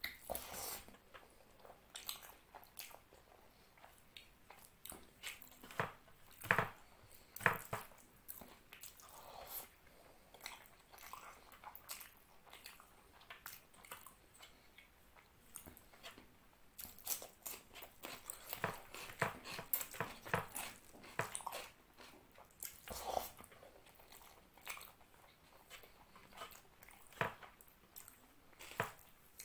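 Close-miked chewing and mouth sounds of a person eating curry-soaked rice by hand, with fingers gathering rice on a plate. Irregular short clicks and smacks, in busier clusters about seven seconds in and again from about seventeen to twenty-three seconds.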